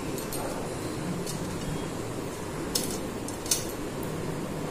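A few sharp clicks and light taps as a handle is fitted against the metal bracket of a non-stick dosa tawa, over a steady low hiss.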